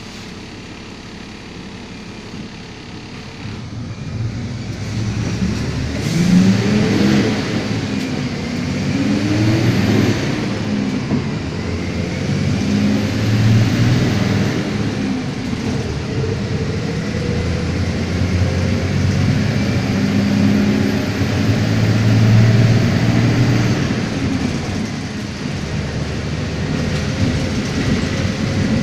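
Iveco CC170E22 bus's diesel engine pulling away and accelerating. It gets louder about four seconds in, and its pitch climbs and then drops several times as it works up through the gears.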